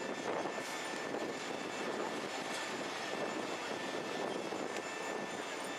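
Steady rushing noise of a parked jet airliner on the apron, its engines or auxiliary power unit running, with a faint high whine.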